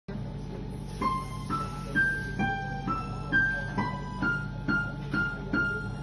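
Slow, relaxing piano music: a melody of single notes, about two a second, each left to ring, over a held low drone.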